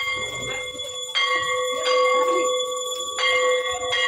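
A metal temple bell struck over and over, about once every second or two, its tone ringing on between strikes.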